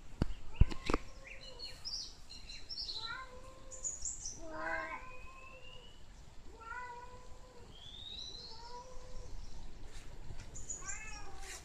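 Domestic cat meowing repeatedly, a string of separate drawn-out calls, some gliding up in pitch. A couple of sharp knocks sound within the first second.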